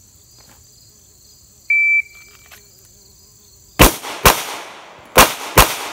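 A shot timer beeps once. About two seconds later a Glock pistol fires four quick shots, the start of a six-shot bill drill, with a pause of nearly a second between the second and third shots. Insects chirp steadily in the background.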